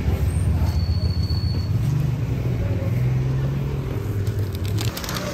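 A motor vehicle's engine running close by: a low rumble with a slightly wavering pitch that eases off near the end.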